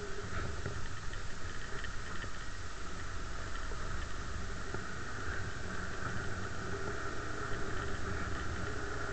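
Bashan 250 quad's engine running steadily while riding a rough dirt track.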